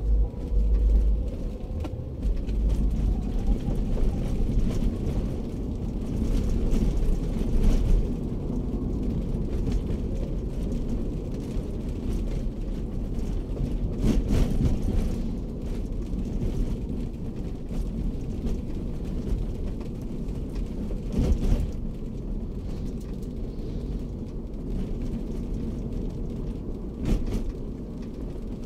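Daihatsu Terios heard from inside the cabin while driving: a steady low rumble of engine and road noise, with a few brief thumps along the way.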